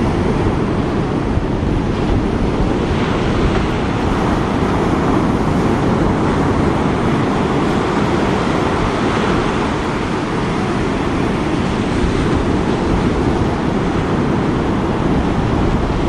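Ocean surf breaking on a sandy beach and washing up the shore, a steady, even rushing noise.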